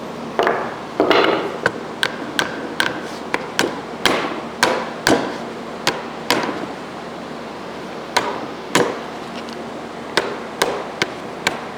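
A string of irregular, sharp knocks and taps as parts of a garbage disposal are knocked into place during reassembly.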